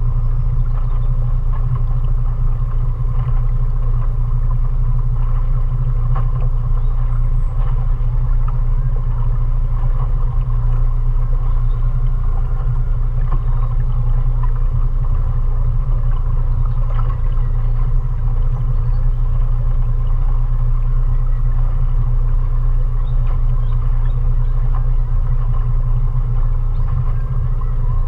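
Mariner 20 hp outboard motor running steadily under way, a constant low drone that does not change in pitch or level.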